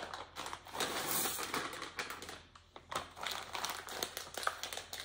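Plastic candy-bag packaging crinkling and rustling in the hands, with a short lull about halfway through.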